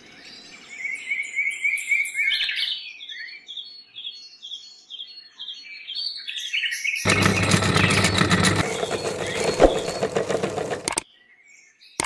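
Wild birds chirping: a quick run of chirps, then a steady series of higher repeated notes. About seven seconds in, a loud rough crackling noise with a low hum takes over for about four seconds and cuts off suddenly.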